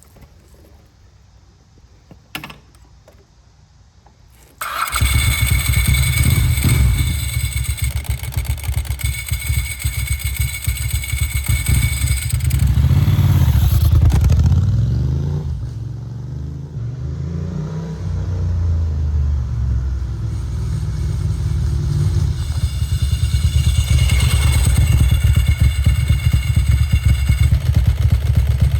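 1994 Ducati Monster 900's air-cooled V-twin starting up about five seconds in and running on its freshly rebuilt Mikuni carburettors, with the throttle blipped so the revs rise and fall around the middle and again near the end.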